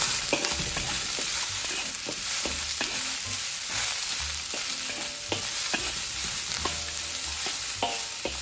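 Sliced onion, ginger, garlic and scallion sizzling in hot oil in a wok as they are stir-fried until fragrant, with a steady sizzle and the spatula scraping and knocking against the wok in irregular strokes.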